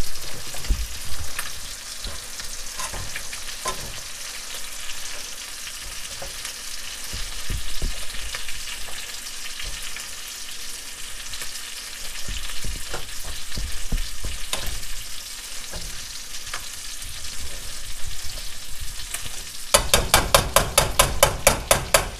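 Sizzling on the stove as spinach is stirred in a stainless steel pot with silicone-tipped tongs, with scattered clicks of the tongs against the pot. Near the end comes a quick, even run of about a dozen sharp clicks.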